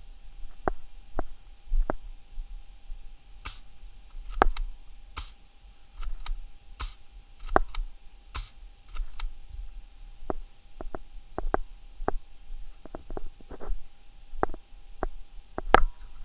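A series of sharp, irregular clicks and taps, roughly two a second, over a faint steady high hum.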